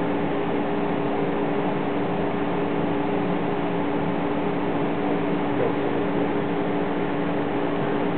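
Steady hum with two constant tones over an even hiss, unchanging throughout, like a running fan or motor.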